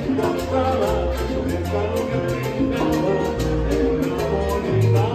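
A Latin dance band playing an instrumental passage. A bass line moves under held melody notes, over a steady, quick percussion beat.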